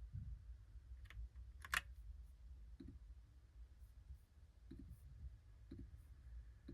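Logitech Pop Keys mechanical keyboard: a few slow, scattered keystrokes, roughly one a second, with one louder key click just under two seconds in.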